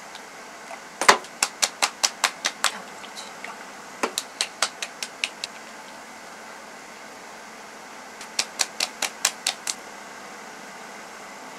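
Palms patting skincare product onto the face in three quick runs of sharp slaps, about seven or eight each at roughly five a second. A steady low hiss runs underneath.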